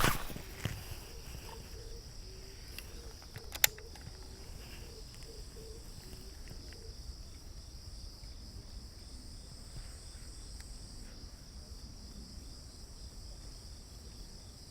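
Steady high-pitched insect chorus droning without a break, with a sharp click at the start and another about three and a half seconds in.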